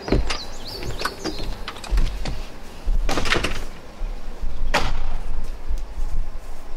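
Axe chopping at the butt of a hung-up tree, a series of sharp knocks with a cluster of blows about three seconds in and one hard strike near five seconds, with wind rumbling on the microphone.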